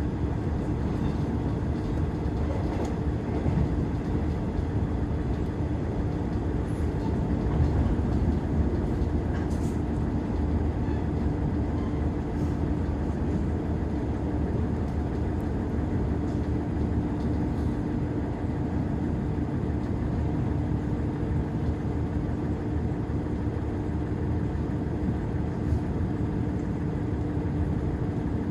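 Interior of a KiHa 110 series diesel railcar under way: a steady engine drone with one held low tone and light rattles and ticks, without a break.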